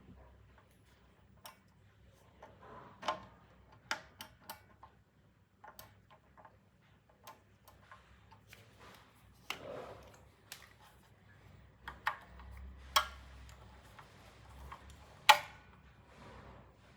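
Irregular clicks, taps and knocks of tools and small parts being handled during hands-on repair work. The loudest sharp click comes about fifteen seconds in.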